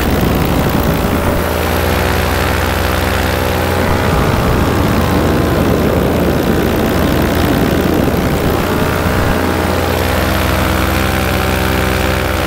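Vittorazi Moster 185 single-cylinder two-stroke paramotor engine and propeller running steadily at cruise power in flight, with wind hiss on the microphone.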